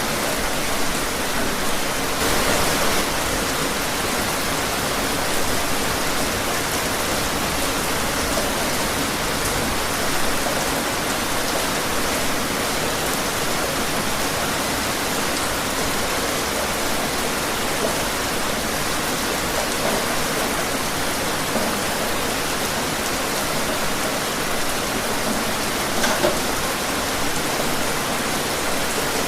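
Steady rain falling outdoors: an even hiss with a few louder drops or splashes.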